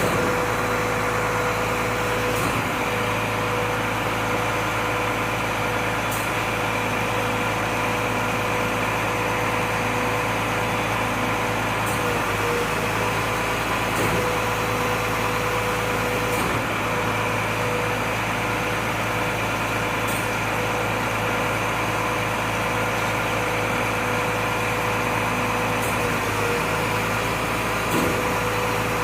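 Volvo FM 370 truck engine running steadily, its hum briefly breaking a few times, the hiccup-like sound the truck is known for.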